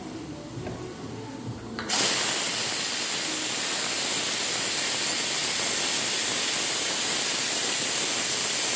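Pressure cooker whistle going off about two seconds in: a sudden loud hiss of escaping steam that holds steady. The cooker holding the rice has come up to pressure.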